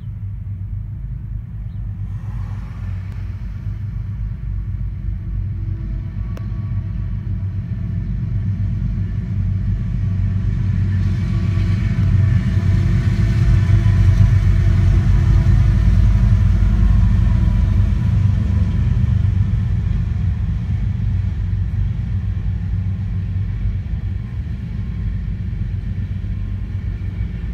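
BNSF coal train's diesel locomotives rumbling as they approach and pass, the rumble building to its loudest about halfway through, then the steady rumble of coal hopper cars rolling by.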